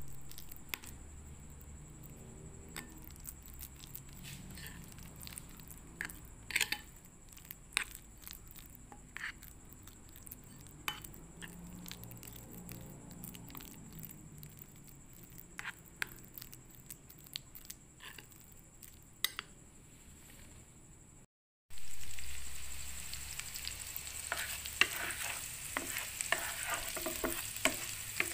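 A metal spoon stirring mashed potato in a glass bowl, with scattered sharp clinks of the spoon against the glass. About three-quarters of the way through, it cuts to chopped garlic frying in butter in a pan, sizzling loudly while a wooden spatula stirs it.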